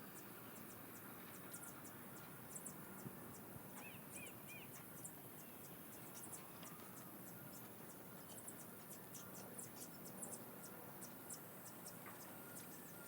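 Near silence with faint scattered high-pitched ticks and a brief little chirp about four seconds in.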